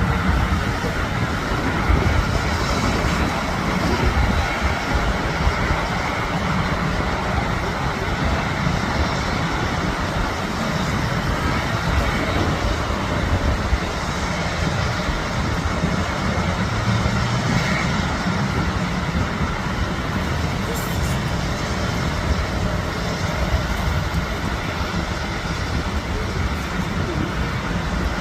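Airbus A350-900 jet engines (Rolls-Royce Trent XWB) at takeoff power: a steady roar with a heavy low rumble.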